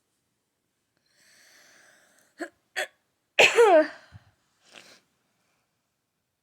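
A woman sneezing once: a breath drawn in, two short catches, then one loud sneeze whose voice slides down in pitch, followed by a short breath out. She has allergies.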